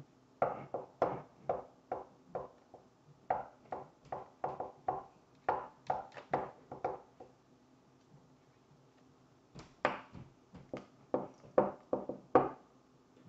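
Close-up chewing of crunchy food, crunch after crunch at about two or three a second, pausing for a couple of seconds in the middle before another run of crunches.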